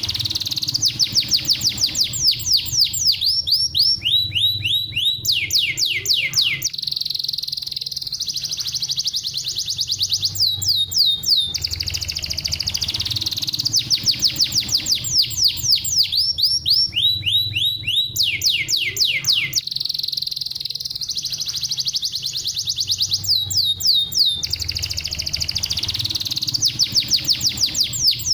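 Domestic canary singing a fast song of rapid trills and rolls: long runs of quickly repeated down-slurred notes alternating with steady buzzing trills. The same sequence of phrases comes round again about every eleven seconds.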